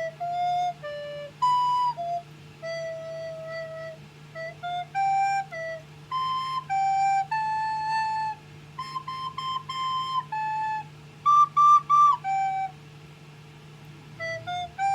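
Recorder played by a child: a slow tune of separate held notes, with three quick repeated higher notes a little after the middle and a short pause before the last few notes.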